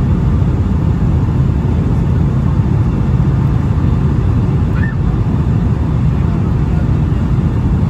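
Steady low rumble inside the economy cabin of a Boeing 757-200: air rushing past the fuselage and its two Pratt & Whitney PW2000 turbofans running.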